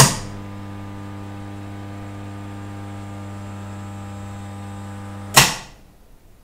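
Electric ceramic kiln's relay clicking on, then a steady mains hum from the switched-on heating circuit for about five seconds, cut off by a second click as it switches off. This is the controller cycling power to the elements during a high-temperature firing.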